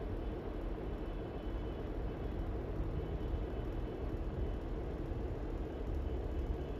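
TEM18DM diesel shunting locomotive's engine running, a steady low rumble.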